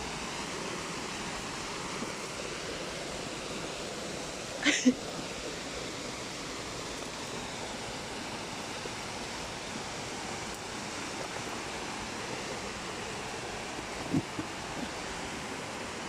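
Steady rushing of a river waterfall cascading over rocks, an even hiss of water. A short sharp noise sounds about five seconds in, and a softer, lower one near the end.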